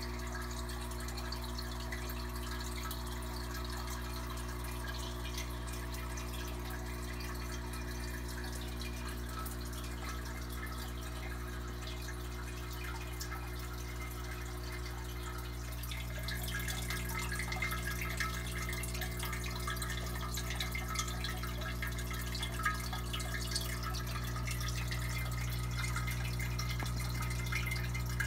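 Aquarium filter running: water splashing and dripping from its outflow into the tank over a steady low hum. The splashing grows louder about sixteen seconds in.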